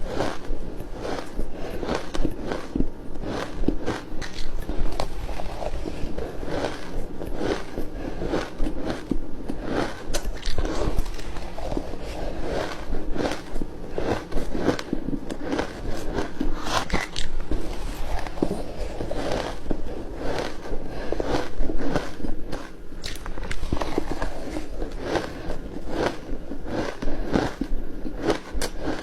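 Flaky ice being bitten and chewed close to the microphone: continuous, dense crunching and crackling, with no pause.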